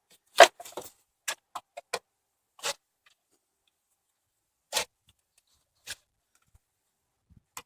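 A socket wrench clicking and clinking at a truck battery terminal: about eight separate, irregular sharp metal clicks, the loudest about half a second in.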